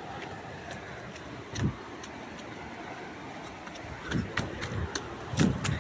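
Footsteps on a dirt and leaf-litter path through brush, with leaves and twigs brushing and crunching. A single thump about a second and a half in, then a quick run of steps and crunches in the last two seconds, over steady background noise.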